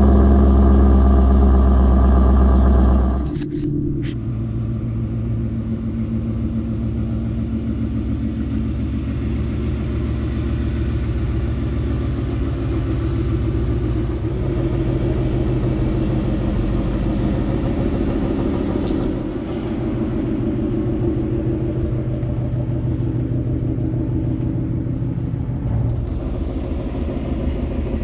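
Ford Mustang with a six-speed manual, driving and heard from inside the cabin. The engine and drivetrain run loud for about the first three seconds, then drop off suddenly to a steady drone.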